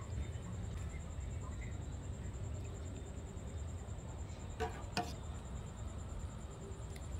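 Fish cooking in sauce in a foil tray on a portable gas stove: a steady low rumble with a few faint pops, and two sharp clicks half a second apart about two-thirds of the way through.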